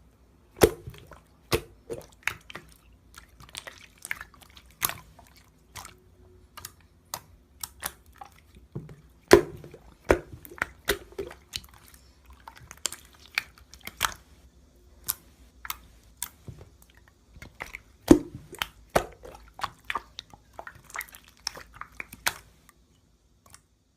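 Slime being squeezed and poked by hand, making irregular sticky pops, clicks and squishes; three pops stand out, about a second in, near the middle and about three quarters through.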